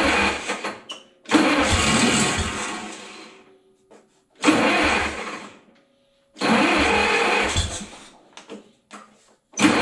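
Gasoline engine of an old Schramm Pneumapower 35-H air compressor being cranked over in repeated short bursts, each one to two seconds long with brief pauses between, sputtering and trying to catch on a first start after sitting for about 30 years.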